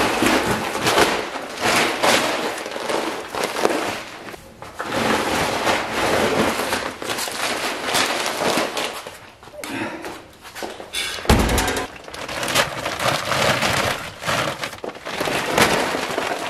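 Sacks of animal feed being handled: rustling and scraping of the bags in irregular spells, with one loud thud about two-thirds of the way through as a sack is dropped.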